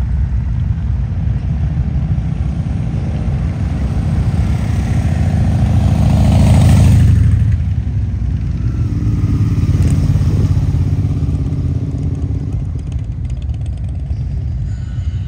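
Motorcycle engines running with a steady low rumble; one swells louder about six to seven seconds in and then falls away.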